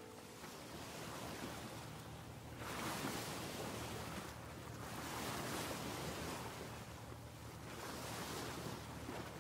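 Ocean surf washing in, swelling and fading in slow surges every two to three seconds.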